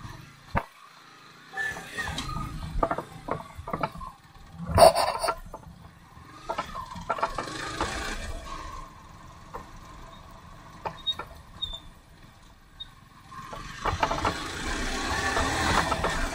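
Yamaha sport motorcycle going slowly over a rough, broken dirt track, with scattered knocks and clatters from the bike and the ground and one loud sharp clatter about five seconds in. Engine and wind noise build near the end as it picks up speed on the dirt road.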